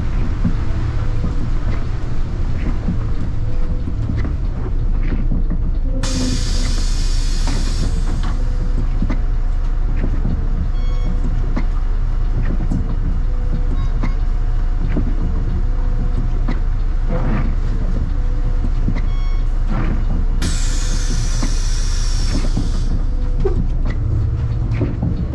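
City bus heard from on board while under way: steady engine and road rumble, broken twice by a loud hiss of compressed air lasting two to three seconds, about six seconds in and again about twenty seconds in.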